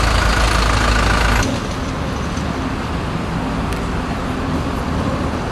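A large engine idling close by with a heavy low rumble, which cuts off suddenly about a second and a half in, leaving steady city traffic noise from passing trucks and vans.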